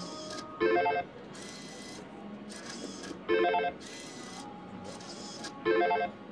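Slot machine spin after spin: a short electronic chime jingle about every two and a half seconds, three in all, with fainter high-pitched bursts between them.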